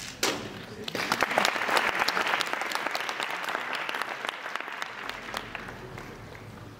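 A sharp slap just after the start as hands come down on a speedcubing timer to stop it, then an audience applauding for about four seconds before it fades out.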